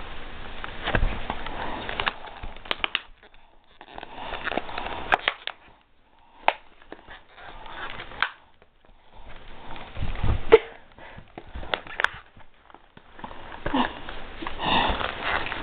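Pit bull puppy sniffing and snuffling in bursts with short pauses while mouthing and tugging a plush toy, with fabric rustling and scattered small clicks.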